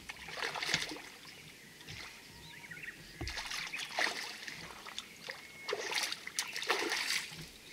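Water splashing in three bursts as a hooked herabuna (Japanese crucian carp) struggles on the line near the surface.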